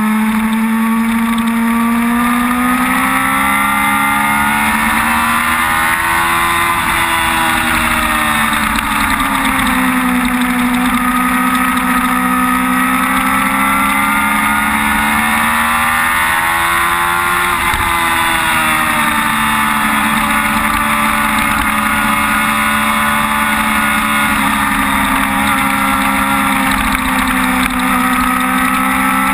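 Sport motorcycle engine running hard at high revs, its pitch climbing slowly and falling back twice as the rider works the throttle and gears, with rushing wind noise underneath.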